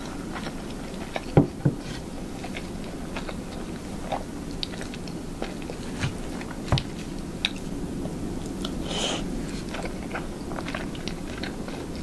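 Close-miked chewing and wet mouth clicks of someone eating soft hamburger steak in demi-glace sauce with rice. Two sharper knocks come about a second and a half in.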